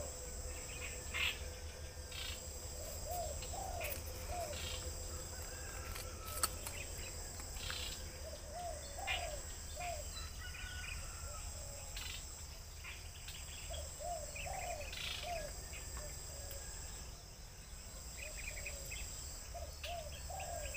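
Crickets or other insects trilling steadily at a high pitch, while a bird repeats a short phrase of three or four low arching notes about every five or six seconds.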